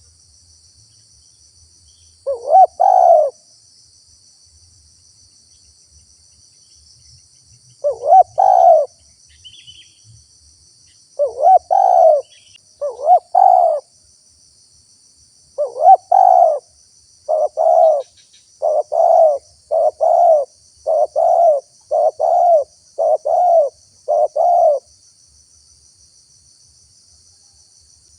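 Spotted dove cooing its 'te-kuk-kurr' call in spaced phrases, then a quicker run of short coos, about one a second, in the second half. A faint steady high insect hum runs underneath.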